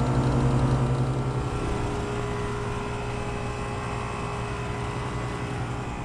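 Carrier Performance Series heat pump outdoor unit running in heating mode: a steady hum of compressor and condenser fan, with a low drone and a few steady tones. It gets a little quieter after the first second or two.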